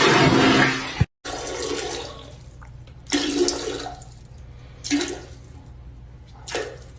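A loud rush of running water that cuts off abruptly about a second in. Three brief, fainter sounds follow, spaced a second or two apart.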